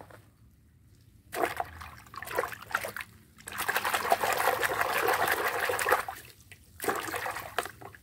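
A hand sloshing and splashing in a basin of soapy, muddy water. Short bursts of splashing start about a second in, a longer stretch of steady sloshing fills the middle, and one last short splash comes near the end.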